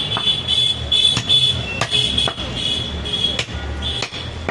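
Large butcher's knife cutting goat meat on a wooden stump block, with several sharp knocks of the blade against the wood at irregular intervals. A steady high-pitched tone that breaks off now and then and a low hum run underneath.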